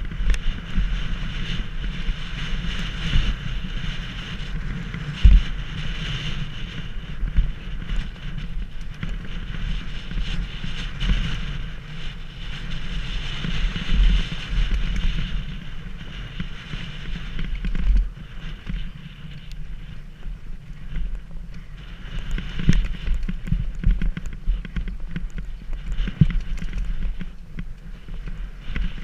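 Downhill mountain bike descending a rough trail: wind buffets the microphone in a steady low rumble, with the rattle of the bike and scattered sharp knocks as it hits bumps.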